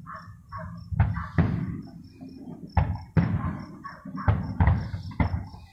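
Aerial fireworks exploding in quick succession: about seven sharp booms, each dying away over a fraction of a second, some coming in close pairs.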